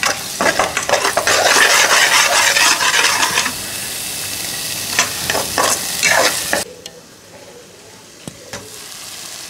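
Onion, ginger and garlic masala sizzling in oil in a non-stick pan while a perforated steel spatula stirs and scrapes it in repeated strokes. The sizzle is loudest in the first few seconds, then settles lower. About two-thirds of the way through it cuts off abruptly, leaving only a faint background.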